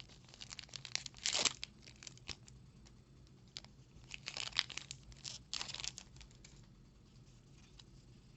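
Foil booster pack wrapper being torn and crinkled open, in a few short rips and rustles about a second in and again around four to six seconds in, with small clicks of handling between.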